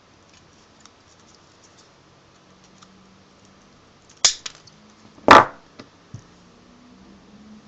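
Sharp metallic clicks and one loud snap as the electrode assembly of an ECC82 double triode vacuum tube is broken apart with hand tools: a click about four seconds in, the hard snap a second later, then two lighter clicks.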